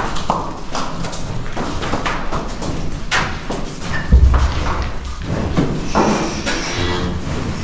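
Cattle hooves knocking and scuffing irregularly on a concrete barn floor as a large bovine is walked into its stall, with one heavy thud about four seconds in.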